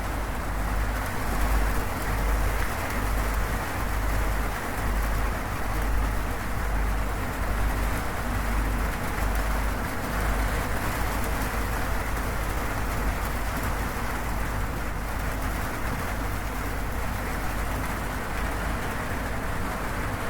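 Steady rain falling on a zinc roof, an even unbroken patter, with a deep low rumble underneath that is heavier in the first half.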